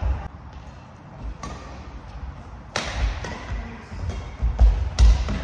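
Doubles badminton rally: several sharp smacks of rackets striking the shuttlecock, a second or so apart, with heavier thuds of players' feet on the wooden court floor, loudest near the end.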